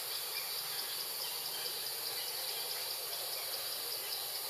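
Insects chirring steadily in the forest background: a continuous high-pitched, evenly pulsing trill.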